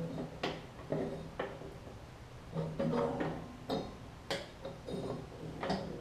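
Worn rubber deck belt being pulled off the pulleys of a Craftsman LT1000 mower deck by hand, a tight fit: irregular light clicks and knocks of belt, pulleys and metal deck being handled.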